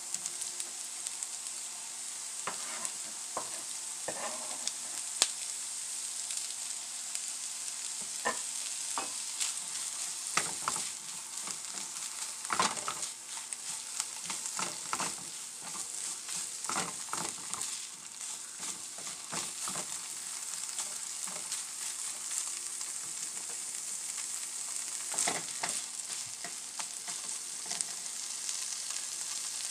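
Diced onion, carrot, jalapeño and bologna sizzling in a nonstick frying pan with a steady high hiss, while a silicone spatula stirs and scrapes across the pan in irregular strokes.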